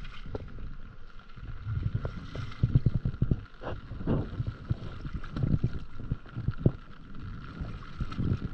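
Stand-up paddleboard paddle strokes, the blade dipping and pulling through the water in uneven strokes, with wind buffeting the microphone as a low rumble.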